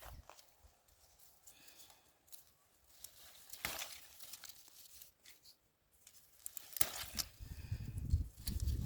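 Dry leaves and stalks rustling and crackling as cowpea pods are picked by hand, with scattered sharp snaps. A low rumble with denser crackling comes in from about two-thirds of the way through.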